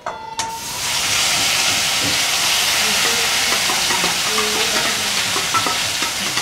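Onion-tomato-cashew gravy poured into hot oil, butter and ghee tempering with cumin in a steel kadai. A loud sizzle starts suddenly about half a second in and carries on steadily, with light clinks of a spoon scraping the steel bowl.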